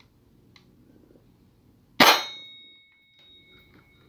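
A single shot from a custom Glock 17 pistol about two seconds in, sharp and loud in a small room. A metallic ringing tone follows it and fades slowly over the next two seconds: the pin plate behind the target ringing from the hit.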